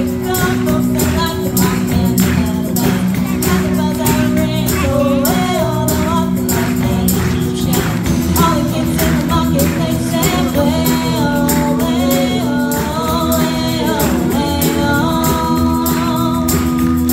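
Live rock band playing a song: drum kit, electric guitars and bass, with girls singing the lead vocal.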